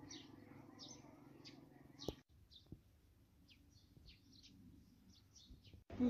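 Faint bird chirps: short, high calls that slide downward, about two a second, with one soft click about two seconds in.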